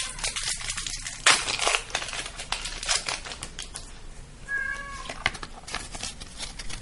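Rustling and clicking from booster packs and cards being handled. A house cat gives a short meow about halfway through.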